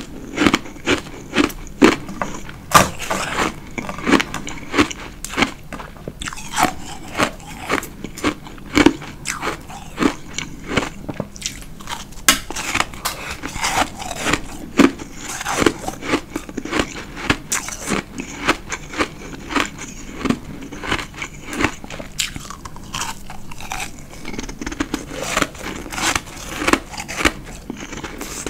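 Chunks of white powdery ice being bitten and chewed, with a quick run of crisp crunches, several a second.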